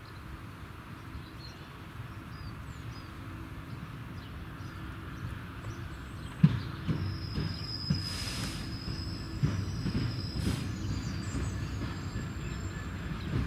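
A Class 66 diesel locomotive's two-stroke V12 engine running as it draws a train of ballast hopper wagons slowly in, growing louder as it nears. From about halfway in, the wheels knock over rail joints and a thin high squeal comes from the wheels.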